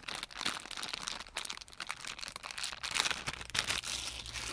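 Plastic clicking, rustling and scraping of a car USB charger port and its wiring being handled and pushed into the dashboard socket, in irregular short clicks.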